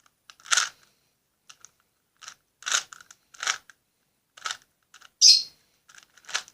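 Plastic Rubik's cube being twisted while scrambled: about six short, irregular clicking scrapes as layers are turned, with the pieces sticking.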